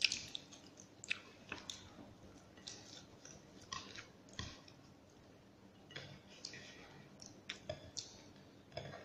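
A person chewing and eating rice and greens by hand, with soft, irregular clicks and smacks.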